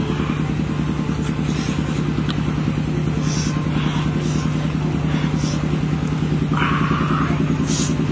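An engine running steadily with a fast, even pulsing hum. Over it come a few short crunches of centipedes being chewed.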